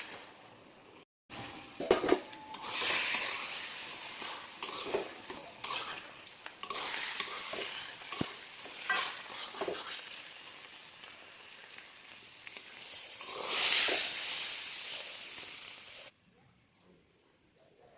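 Bottle gourd and egg frying in a pan: a steady sizzle, with a cooking utensil stirring and knocking against the pan. The sizzle swells loudly twice, about three seconds in and again about fourteen seconds in. It breaks off briefly about a second in and stops about sixteen seconds in.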